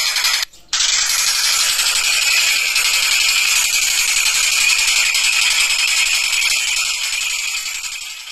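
Kingfisher (tengkek buto) giving a fast, continuous rattling call, cut off briefly about half a second in.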